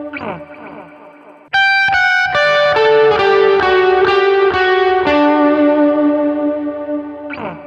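Electric guitar played through a Line 6 digital amp-and-effects modeler with light overdrive: a ringing chord fades out with a quick slide down the strings, then a picked melodic phrase starts about a second and a half in and rings out, fading with another slide near the end.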